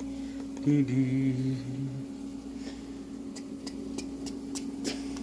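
A man humming a few held notes, wordless, for the first two seconds over a steady low hum. Then a series of light clicks and taps follows.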